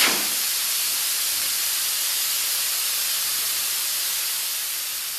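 Air rushing out through the valve of a large 710/55 R30 tractor tyre being deflated: a loud hiss that starts with a sudden burst, holds steady, and eases slightly near the end.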